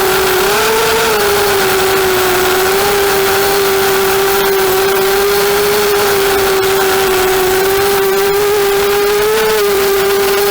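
Electric motors and propellers of a 250-size FPV racing quadcopter whining at a steady pitch, rising briefly about half a second in and again near the end as the throttle is blipped, over rushing wind noise.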